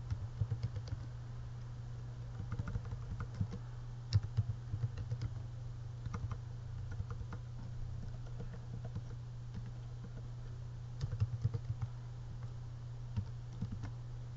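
Typing on a computer keyboard in irregular bursts of keystrokes with short pauses between, over a steady low electrical hum.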